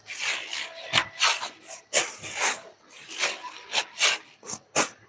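Woven saree fabric rustling and swishing in a string of quick strokes as the sarees are gathered up and lifted off a counter, with a couple of short thuds about a second in and near the end.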